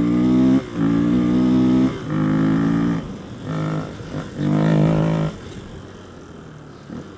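Honda XR250R dirt bike's single-cylinder four-stroke engine pulling at steady pitch in several roughly one-second bursts on the throttle, with short lulls between. About five seconds in it eases off to a quieter run.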